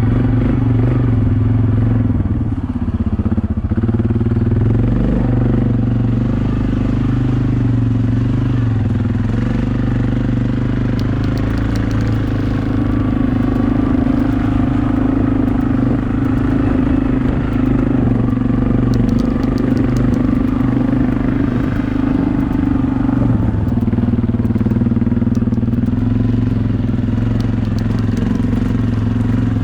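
ATV (quad bike) engine running steadily while riding, with short dips in revs about three seconds in and again near the end.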